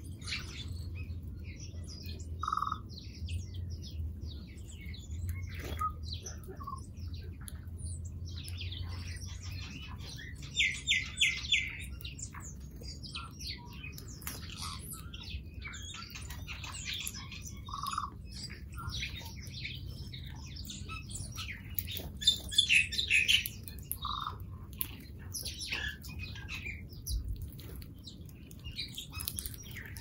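Small birds chirping, with many short high calls throughout. A quick run of four loud chirps comes about ten seconds in, and another loud burst a little after twenty seconds. A low steady hum lies underneath, mainly in the first half.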